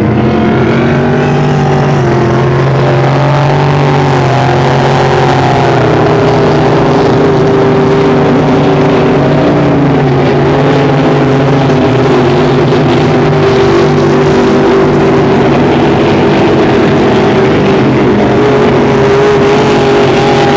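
Engines of several racing speedboats running at high speed as they pass, their overlapping engine notes shifting in pitch during the first few seconds and then holding steadier.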